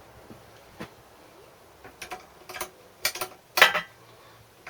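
Sharp metallic clicks and clinks of hand tools and small engine parts being handled while fitting them to a small engine, scattered and irregular, the loudest about three and a half seconds in.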